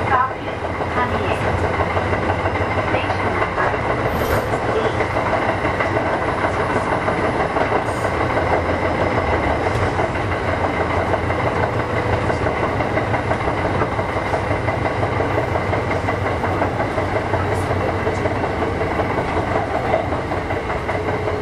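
Kintetsu 1000 series electric train running between stations: steady rumble of wheels on rail with light rail-joint clicks and a faint steady hum.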